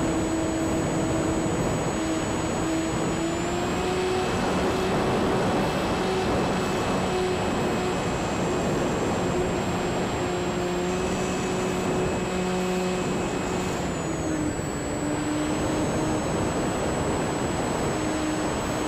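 E-flite Sukhoi RC aerobatic plane's electric motor and propeller running in flight, a steady hum over rushing air. The pitch steps up about three and a half seconds in and drops back about fourteen seconds in.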